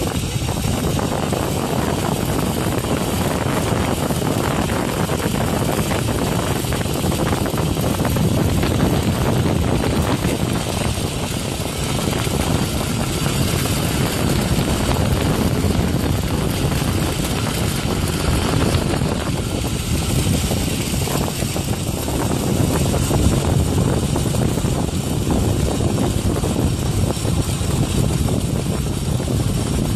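Wind buffeting a phone's microphone during a high chairlift ride: a steady, rough rushing and rumbling noise that never lets up.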